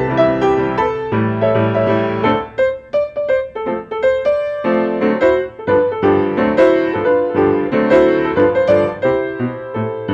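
Grand piano played solo: a continuous flow of chords and melody notes.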